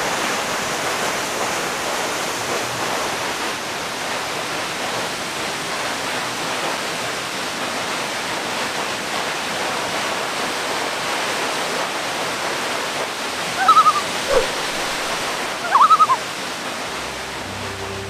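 Steady rushing of a waterfall, an even wash of falling water. A few short pitched calls break through about three-quarters of the way in, and soft music notes come in just before the end.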